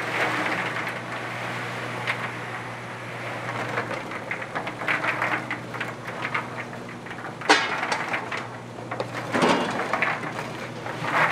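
Stainless-steel coating drum turning with a steady motor hum while a batch of fried dough twists tumbles and rattles against the steel inside, with a sharp knock about seven and a half seconds in.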